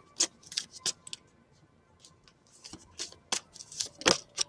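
A handmade deck of cards being shuffled by hand: a run of short, crisp card snaps and flicks at an irregular pace, with a brief lull in the middle.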